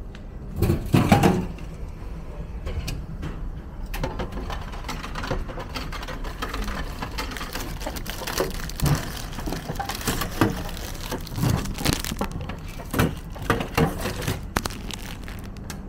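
Crinkling and rustling of the clear plastic bag around a candied apple as it is pulled out of a vending machine's pickup opening, with a louder clatter about a second in.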